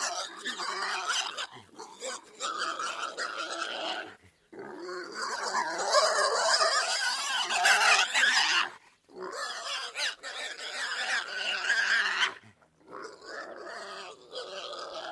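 Pigs vocalising in harsh, noisy bouts a few seconds long, broken by short pauses.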